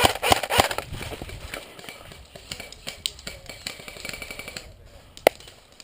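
Quick, irregular footsteps and gear rattling as a player moves, loudest in the first second, then fainter scattered clicks. A single sharp snap comes near the end.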